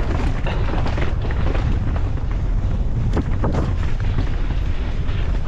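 Heavy wind buffeting on a mountain bike rider's GoPro microphone at speed, with the clatter and knocks of the bike running over rough trail.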